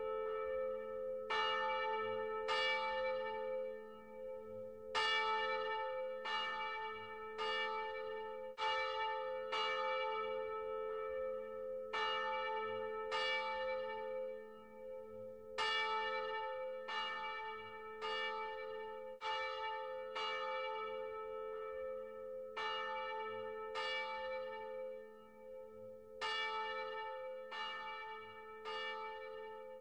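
A single bell tolling, struck roughly once a second in uneven runs with short pauses. Each stroke rings the same set of tones, and its hum carries on between strokes.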